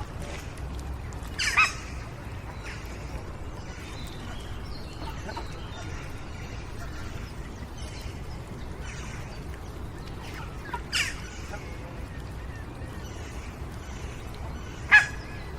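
Playground ambience: children playing in the distance and birds singing over a steady low background rumble. Three short, sharp high-pitched cries stand out, about a second and a half in, about eleven seconds in, and near the end.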